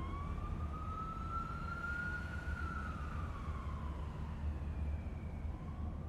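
A lone electronic synth tone from the tail of an electronic dance track, sliding slowly up and then back down in pitch like a siren, over a steady low rumble.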